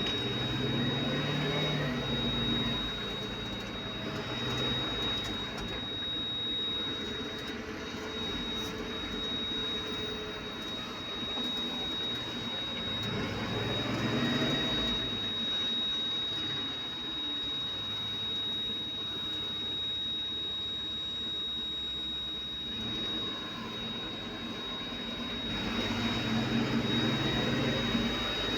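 Engine noise from heavy machinery or vehicles, swelling and rising in pitch three times, with a steady high-pitched whine throughout.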